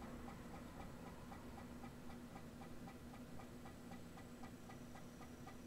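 Floppy disk drive ticking faintly and evenly, about five ticks a second, over a steady low hum, as the read head steps from track to track while a file loads.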